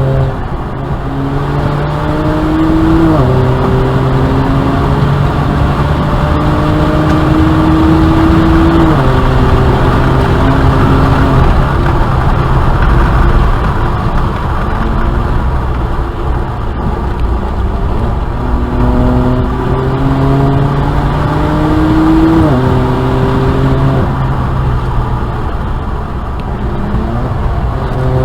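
BMW 335i's N54 twin-turbo straight-six under hard acceleration on track. The engine note climbs and drops back at upshifts about three, nine and twenty-two seconds in. In between, the engine is quieter under road and wind noise.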